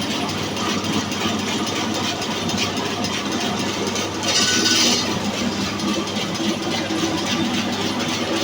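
Electric horizontal band sawmill running steadily, its motor and blade giving a continuous mechanical hum. About four seconds in a louder hiss rises for under a second, then settles back.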